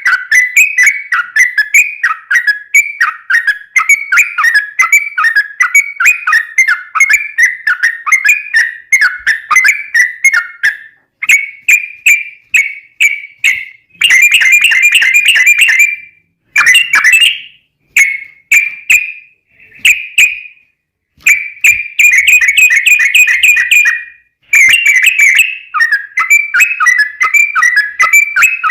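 Yellow-vented bulbul (trucukan) singing a long, fast run of repeated bubbly chirps, the rolling 'ropel' song, with a few short breaks along the way.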